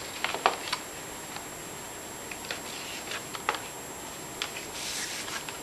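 Light clicks and taps of boxed product packaging, windowed display boxes, being set down and lined up against each other on a table: a handful of short separate knocks at uneven intervals.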